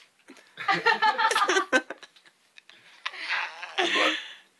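A person's voice making two sounds: a run of short pulsing voiced sounds, then a longer, rough voiced sound starting about three seconds in.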